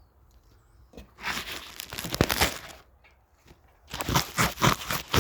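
Two loud bursts of crinkling, crackling rustle, each lasting about two seconds, with a pause of about a second between them.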